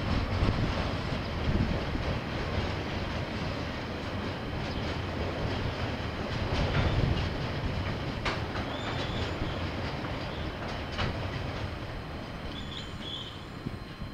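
Freight train wagons rolling past: a steady rumble with a few sharp clicks, growing quieter near the end as the last wagons go by.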